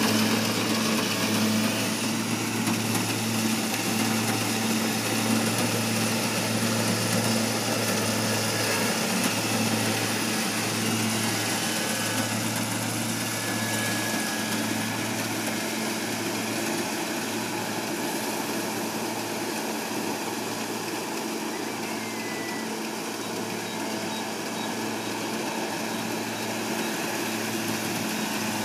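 Kubota DC-70G combine harvester's diesel engine running steadily at a constant working speed while it cuts rice. It grows a little fainter midway as the machine pulls away, then louder again as it comes alongside near the end.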